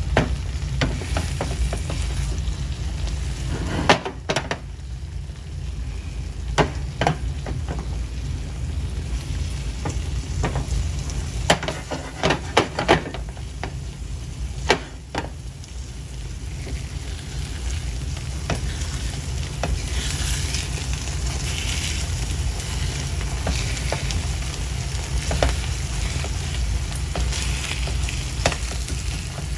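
Egg mixture frying and sizzling in a nonstick pan on a gas burner while a silicone spatula stirs and pushes it around, with a scattering of sharp clicks in the first half. The sizzle grows brighter about halfway through, over a low steady hum.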